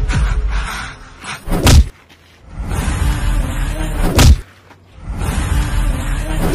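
Three heavy punch-impact sound effects of a staged fight, about two and a half seconds apart, over background music.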